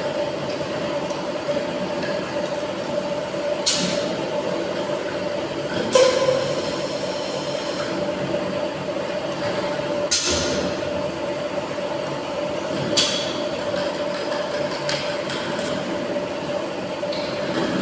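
Tilting-type air-jet bottle washing machine running with a steady mechanical hum and a faint high whine. Four short, loud hisses of compressed air come at uneven gaps.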